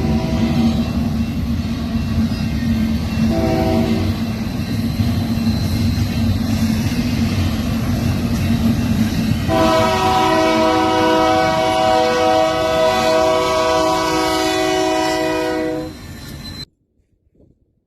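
Train rolling past with a steady low rumble while its air horn sounds a multi-note chord: a blast that ends just after the start, a short one at about three and a half seconds, then a long blast of about six seconds. The sound cuts off abruptly near the end.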